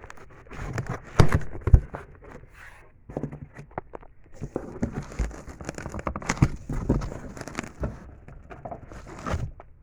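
A package being opened by hand: irregular rustling, crinkling and tearing of packing material, with scattered knocks and clicks and two sharp knocks a little after a second in.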